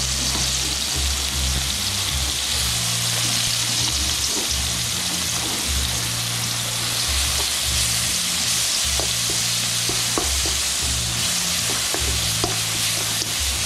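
A small heap of red paste sizzling in hot oil in a wok: a steady frying hiss with scattered small pops and clicks, and a spoon stirring it near the end.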